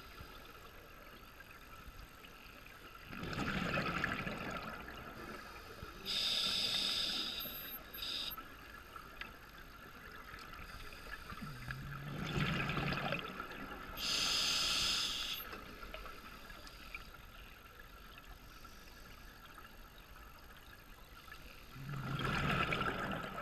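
Scuba diver breathing through an open-circuit regulator underwater: three bubbling exhalations, with the hiss of an inhalation after each of the first two, about one breath every nine seconds.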